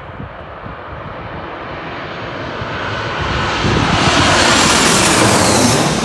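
Airplane flying low overhead: its engine noise swells steadily, is loudest for the last two seconds or so, and starts to fade right at the end.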